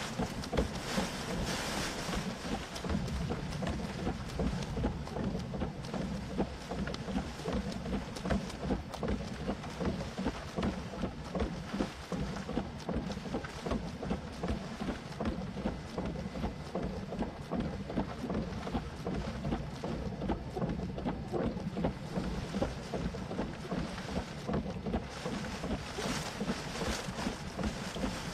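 Gusty wind buffeting the microphone, with rain falling, in a steady, fluttering rush of noise.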